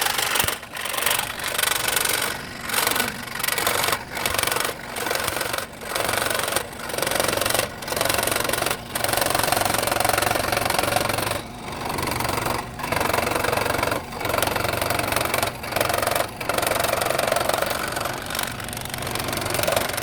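Small electric woodworking power tool working a piece of wood in short passes, its noise breaking off briefly about once a second.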